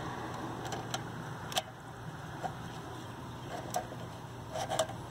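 Scattered small metallic clicks and taps of a Vespa clutch cable and barrel nut being handled at the clutch arm, a few irregular ticks with a small cluster near the end, over a steady low hum.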